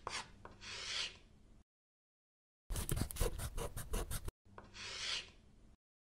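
Animation sound effects: a soft swish, then about a second and a half of quick pen-scribbling strokes like a marker drawing on paper, then another soft swish near the end.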